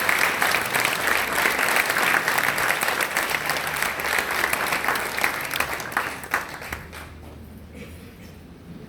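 Audience applauding, dense clapping that thins out and dies away about seven seconds in.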